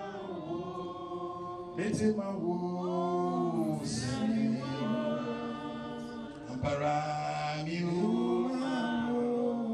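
Slow worship song sung by a group of voices, with long held notes that slide between pitches. There is a knock about two seconds in and another near seven seconds.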